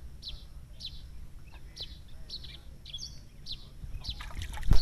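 A bird calling a short, high, falling chirp over and over, a little under twice a second. Near the end a louder noise builds up and drowns it.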